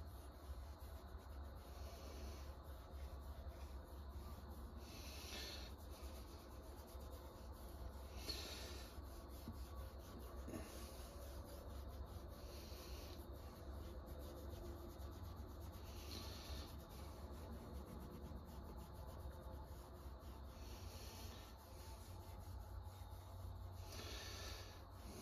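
Faint rubbing of an applicator over a leather knife sheath, working dark brown dye into the leather in soft strokes a few seconds apart, over a steady low hum.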